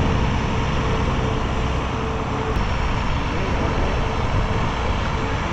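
Farm tractor engine running steadily, with a faint short call about three and a half seconds in.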